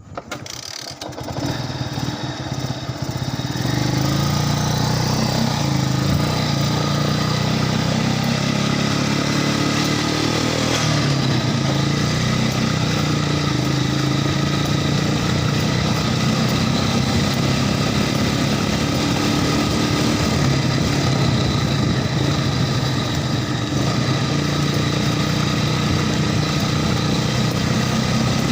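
Off-road vehicle engine comes in loud within the first second, builds over the first few seconds, then runs steadily under load.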